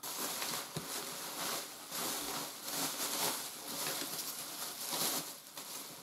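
Bubble wrap and thin plastic bagging rustling and crinkling as they are handled and pulled off packed parts, swelling and fading unevenly.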